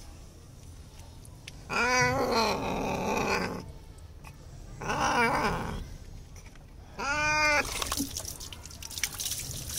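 A frightened cat being bathed yowls three times in distress. Each cry rises and falls in pitch, and the first is the longest.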